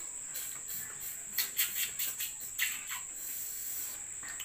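A string of short, sharp sucking slurps as cooked freshwater snails in coconut milk are sucked out of their shells, over the steady high trill of crickets.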